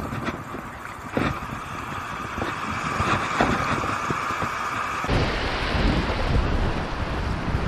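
Surf washing over a shallow sandy beach, with wind buffeting the microphone. About five seconds in it turns abruptly to a louder, deeper wind rumble over the surf.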